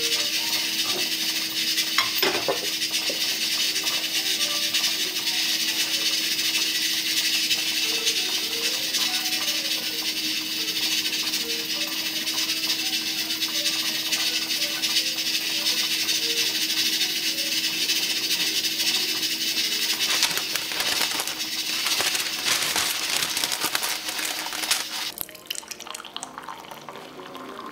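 Steady rushing hiss with a low, even hum beneath it, and a sharp click about two seconds in; the hiss stops about 25 seconds in.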